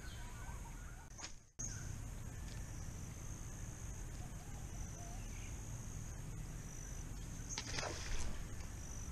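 Riverside bush ambience: a steady high-pitched insect drone with a few faint bird calls, and a short rushing burst about eight seconds in. The sound drops out for a moment about a second and a half in.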